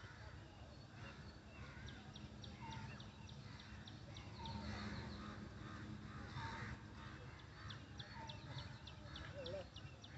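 Outdoor bird calls: runs of short, high, quick chirps repeated many times, with a few lower wavering calls, over a faint low rumble.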